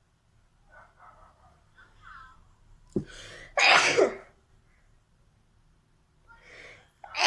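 A woman sneezing. Faint breathy catches build up to one loud sneeze about three and a half seconds in. A quick inhale near the end leads straight into the next sneeze.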